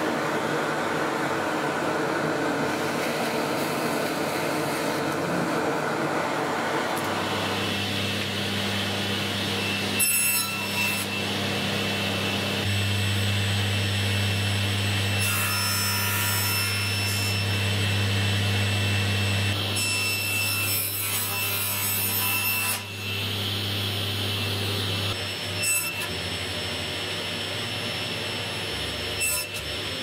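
A drill press bores into wood with a dust-extraction vacuum running. About seven seconds in, a table saw takes over: a steady motor hum, with the blade cutting through small wooden pieces several times.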